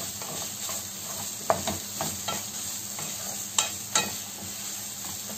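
Chopped liver with peppers and onions sizzling in a frying pan while a wooden spoon stirs it, in the final minutes of frying. A few sharp knocks of the spoon against the pan stand out, about one and a half, three and a half and four seconds in.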